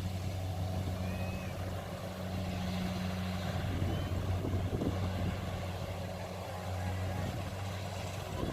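Kubota DC70 combine harvester's diesel engine running at a steady pitch, a constant low hum.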